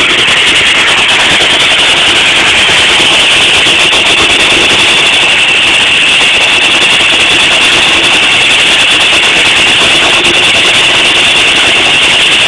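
Half-scale Case 75 steam traction engine running steadily under belt, driving a full-size sawmill, with a steady high whine over the machinery.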